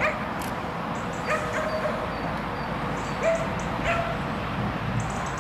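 A dog giving short, high barks and yips, several in a row, roughly one every second.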